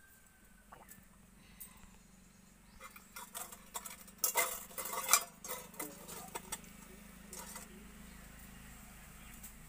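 Fingers scraping and scooping food in a stainless steel bowl, making a run of sharp metallic clinks and scrapes that is busiest about three to six seconds in.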